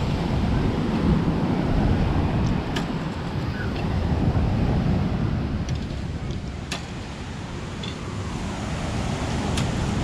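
Strong wind gusting over the microphone, a low rumble that swells and eases, with a few faint ticks standing out.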